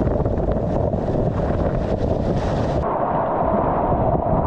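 Loud, steady rush of whitewater churning and splashing around a kayak running a rapid, with wind buffeting the microphone. About three seconds in the hiss drops away and the rush turns duller.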